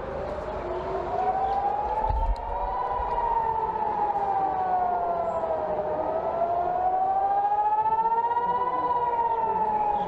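Israeli civil-defence rocket-alert siren wailing, its pitch rising and falling slowly, about one full rise and fall every six seconds: the warning of incoming rockets.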